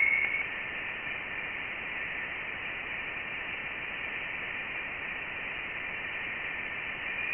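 Voyager 1's recording of electromagnetic waves in deep space, played back as sound: a steady hiss with a thin high tone that fades out in the first half-second.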